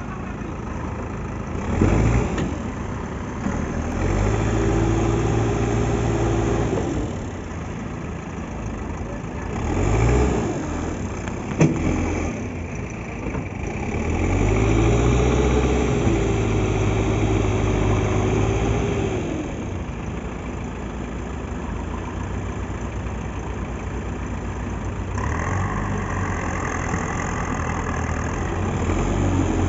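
Diesel engines of a backhoe loader and a farm tractor hauling a sand-laden trailer. They run steadily and rev hard under load twice for several seconds, with short revs about 2 and 10 seconds in and a sharp knock just after. A higher steady whine joins near the end.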